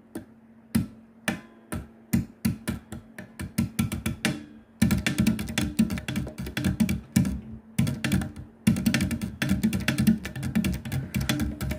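Unaccompanied electric bass guitar played with sharp, clicky note attacks. It starts with spaced single notes that quicken, then about five seconds in breaks into a fast run of percussive notes, pauses briefly near eight seconds, and picks up the fast run again.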